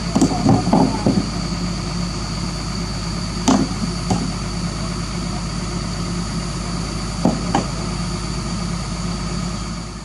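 Doosan DX225LC crawler excavator's diesel engine idling steadily, with a few short, sharp sounds over it: a cluster in the first second, then single ones near the middle and about three quarters through.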